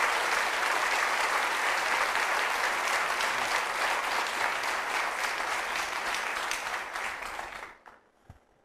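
Studio audience applauding, a steady spell of many hands clapping that dies away about a second before the end.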